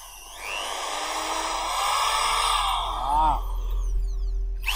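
Master corded hammer drill with a 13 mm chuck spinning with no load under light pressure on its variable-speed trigger, the motor whine rising and falling with the trigger. It winds down near the end and starts up again.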